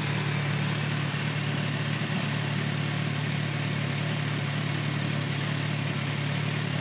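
2013 Kawasaki Z800's inline-four engine idling steadily.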